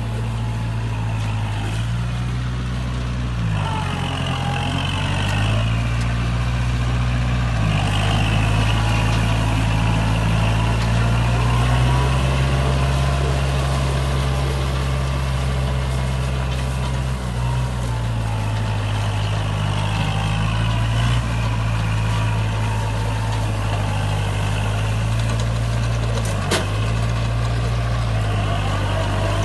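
A tractor engine running under changing load as it drives a round baler, its note dipping and recovering several times. A wavering high whine runs over it, and there is one sharp knock near the end.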